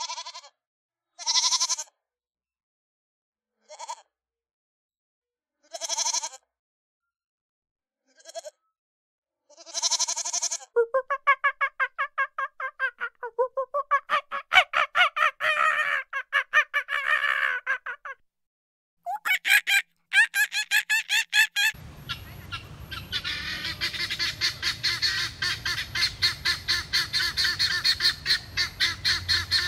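Animal calls cut from several clips: five separate short calls a couple of seconds apart with silence between, then a long run of rapid repeated calls, and from about two-thirds in a flock calling over steady background noise.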